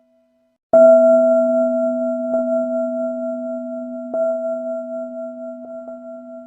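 A bell struck under a second in, ringing with a long, slowly fading tone made of several steady pitches. It is tapped again lightly a few times while it rings, most noticeably about four seconds in.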